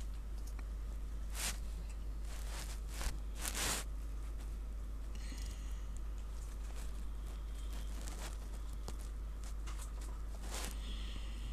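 Steady low hum with scattered soft rustles and taps, the clearest a little after a second in and again around three to four seconds in.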